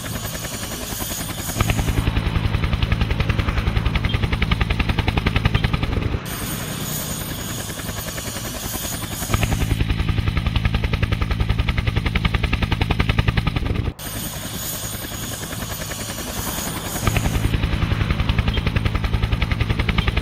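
Helicopter rotor blades chopping with a fast, steady beat. The same recording repeats about every eight seconds, each pass going from a hissier stretch into a louder, deeper thudding.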